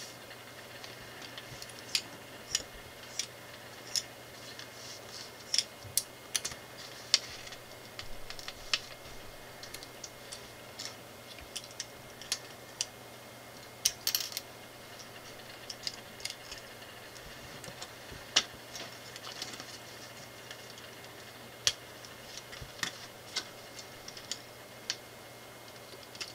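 LEGO bricks clicking as small plastic pieces are pressed together and tapped down on a wooden table: scattered, irregular clicks. There is a brief scratchy rustle about 14 seconds in.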